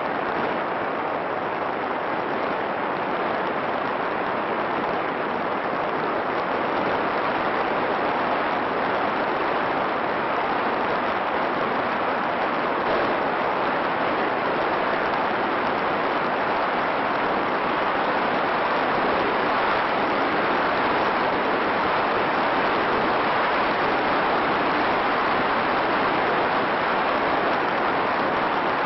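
Steady, even rushing hiss with no motor tone or other distinct sounds, growing slightly louder over the stretch.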